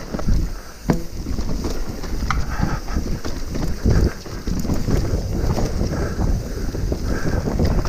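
Wind buffeting the camera microphone over the rattle and rumble of a Trek Remedy full-suspension mountain bike running fast down a rough dirt trail, with irregular sharp knocks as it hits bumps, including a hard one about a second in.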